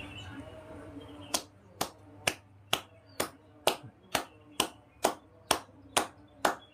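Hands slapping a person's body in massage percussion: sharp, even strikes at a steady rhythm of about two a second, starting a little over a second in.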